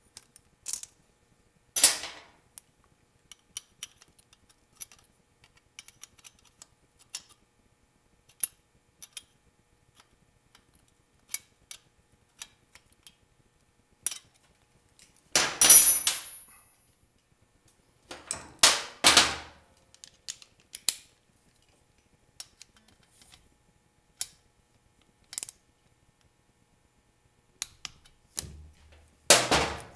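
Scattered small metal clicks and clinks of hand tools on a Honda XR600 engine's valve gear, as a feeler gauge is worked between the rocker arm and valve and a wrench handles the adjuster lock nut. There are a few louder bursts of clatter, the loudest about halfway through with a brief metallic ring, another a few seconds later, and one at the very end.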